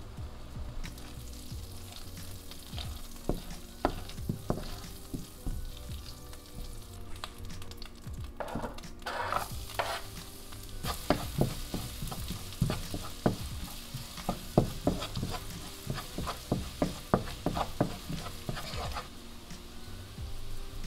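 Food sizzling in butter and oil in a nonstick frying pan, first the shrimp, then minced garlic and chilli flakes. A fork-spatula clicks and scrapes against the pan as it stirs, a few times early on and in quick runs through the second half.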